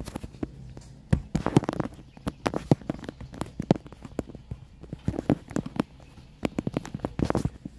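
Handling and movement noise: a run of irregular clicks, taps and a few dull knocks as someone moves around in a car's passenger footwell while holding the recording phone.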